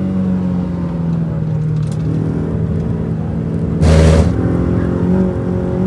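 Renault Twingo RS engine heard from inside the car, running at steady revs with the note sagging slightly and then rising again near the end. About four seconds in a short, loud rushing thump cuts across it.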